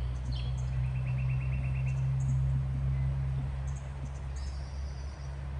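Birds calling: a rapid trill of about a dozen short notes about a second in, scattered high chirps, and a higher trill near the end, all over a steady low drone.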